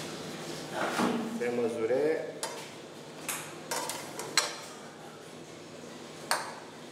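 Metal utensils and pots being handled, clinking and knocking about five times; the sharpest knock comes a little past the middle. A short pitched voice-like sound comes about a second in.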